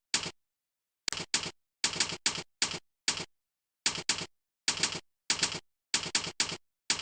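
Keyboard typing clicks, one short sharp click per key press, about eighteen in an uneven rhythm with gaps of up to a second between some of them.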